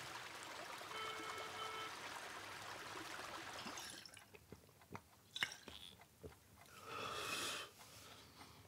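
Faint outdoor background hiss with a short electronic beep from a mobile phone about a second in, as the handset comes away from the ear. Later a few soft clicks and a brief breathy rush near the end.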